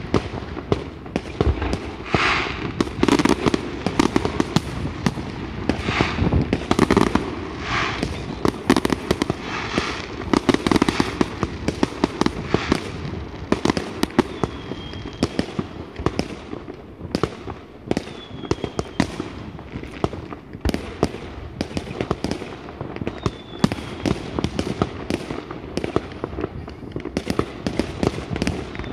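Fireworks display: a dense, unbroken run of bangs from bursting aerial shells mixed with crackling, louder bursts coming every second or two. In the second half a faint short falling whistle recurs every few seconds.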